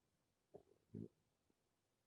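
Near silence: room tone, with two faint short sounds about half a second and a second in.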